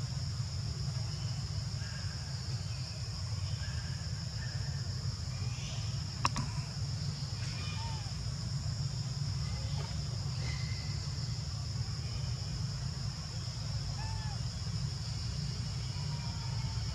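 Steady high-pitched insect drone over a low rumble, with faint short chirps scattered through and one sharp click about six seconds in.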